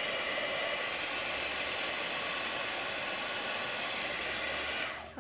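Embossing heat gun running steadily, a fan whir with the hiss of hot air, as it melts embossing powder on a die-cut paper dragonfly. It is switched off near the end.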